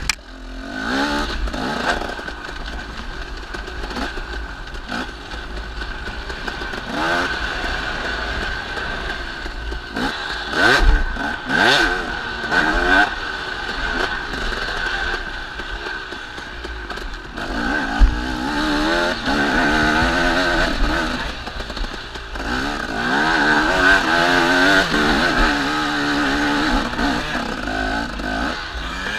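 Dirt bike engine heard from on board while riding, revving up and down again and again with the throttle. A few sharp knocks cut through, around 11 and 18 seconds in.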